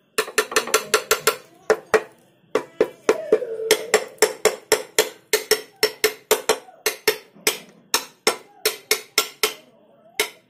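Rapid sharp metallic taps on a Honda GX200 engine being reassembled, each with a brief ringing tone. They come in a quick flurry at first, then pause, then go on steadily at a few taps a second.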